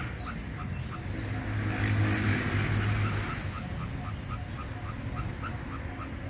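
Treeshrew giving short, sharp calls over and over, about three a second, as if startled by something it has seen. About a second and a half in, a louder rushing noise with a low hum rises and fades within two seconds.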